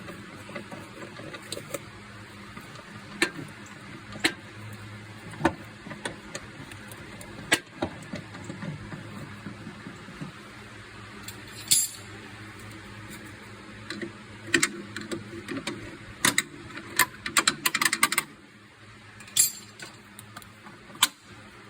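Hand tools and metal suspension parts clinking and knocking during the fitting of upper control arms, as single sharp knocks every second or two, with a quick run of rapid clicks near the end.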